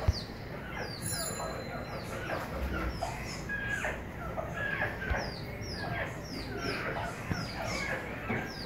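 Small birds chirping: short, high, falling notes repeating a few times a second.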